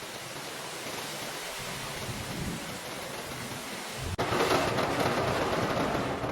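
Steady rushing hiss, like rain or running water; about four seconds in it cuts abruptly to a louder rush.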